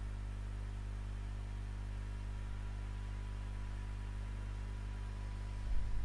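Steady low electrical hum with faint hiss from the recording's background noise. A few soft low thumps come near the end.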